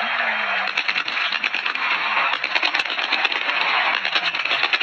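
Stage pyrotechnics crackling in rapid, irregular pops and clicks, starting about a second in, over a steady hiss of stadium noise.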